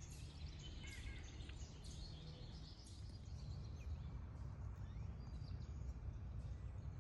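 Wild birds chirping in short, high calls, most of them in the first two seconds and fewer after, over a steady low rumble.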